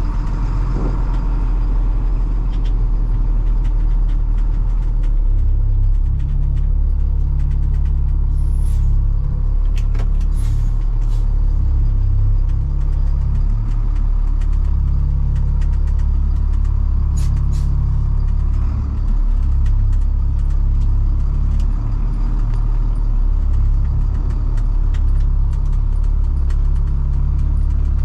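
Work vehicle's engine running while still cold and being driven off gently. Its deep rumble grows heavier about five seconds in, then rises and falls with the throttle, with a few light clicks over it.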